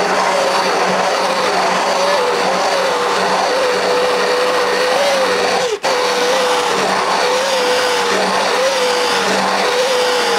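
Hand-held immersion blender running continuously, its motor whine wavering slightly in pitch as it whips eggs and oil into mayonnaise. The sound cuts out for a split second a little before the middle.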